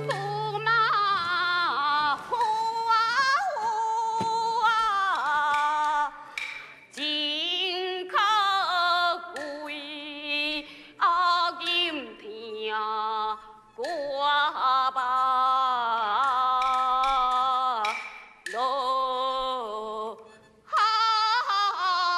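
A woman singing a Taiwanese opera (gezaixi) aria in long, wavering phrases with short breaks between them.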